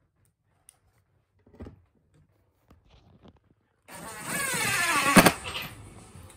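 Power drill driver sinking a screw through a steel hinge plate into a pine slat: a few faint knocks, then about four seconds in the motor runs with its pitch falling as the screw bites, ending in a sharp click as the screw seats.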